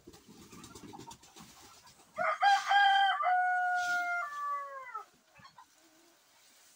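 A rooster crows once, a loud call starting about two seconds in, held on a few steady notes that step down and trail off into a falling glide. Before it, a low rustle of dry litter spilling from sacks onto the floor.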